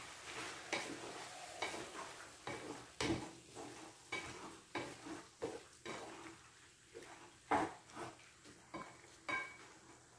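Wooden spatula stirring squid in a non-stick frying pan, scraping and knocking against the pan in irregular strokes, roughly one to two a second. Faint sizzling underneath as the squid sautés.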